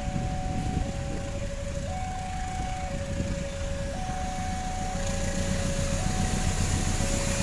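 Two-tone electronic railway warning alarm, alternating between a higher and a lower note about once a second, over the low rumble of an approaching CC201 diesel locomotive that slowly grows louder.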